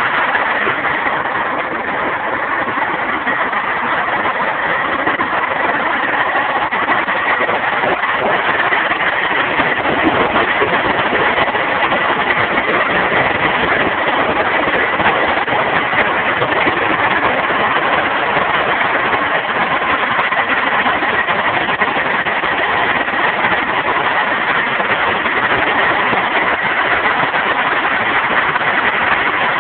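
Scania 113 Top Line truck's 11-litre straight-six turbo diesel running steadily at a constant speed, with a thin high whine held over the engine noise.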